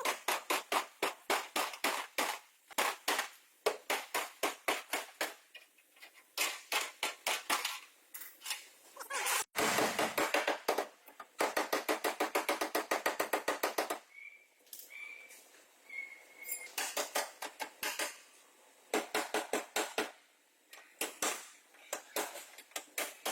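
Rapid light hammer taps on sheet metal, about four to six a second, in runs broken by short pauses: body panel being worked with a hammer in accident repair.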